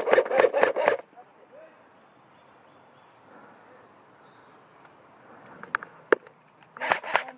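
Airsoft gun firing a rapid string of sharp shots, about five a second, that stops a second in. A few single clicks follow, and a second short string comes near the end.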